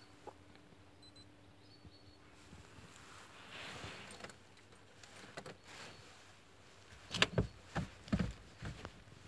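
Quiet car cabin with the ignition on and the diesel engine not yet running: a faint steady hum in the first couple of seconds, then scattered small clicks and a cluster of knocks and rustles from handling about seven to eight and a half seconds in.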